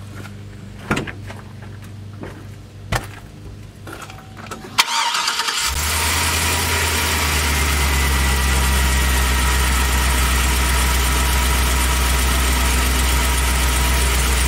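A few knocks, then about five seconds in the 2004 Chevy Express 3500's 6.0-litre LQ4 V8 cranks briefly, catches and settles into a steady idle.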